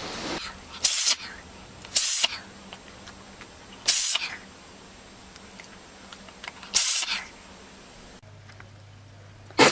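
An animal sneezing: four short, sharp sneezes one to three seconds apart, then one more near the end.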